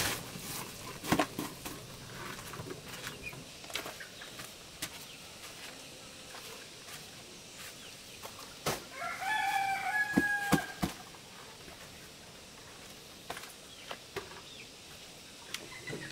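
A rooster crows once, a call of nearly two seconds starting about nine seconds in, among scattered light knocks and clicks.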